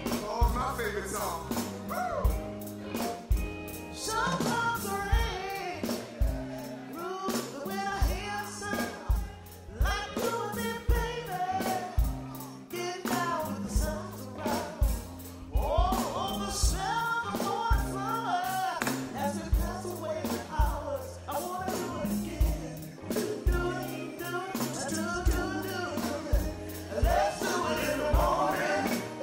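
Live band playing soul music with a steady drum beat and singing.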